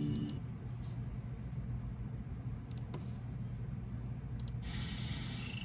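VHS tape playback noise in the gap between trailers: a steady low hum with a few faint clicks. Near the end a brighter hiss and a wavering high tone come in as the next segment starts.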